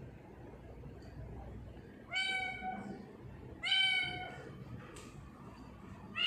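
Tortoiseshell kitten meowing: two short meows about a second and a half apart, with a third beginning at the very end.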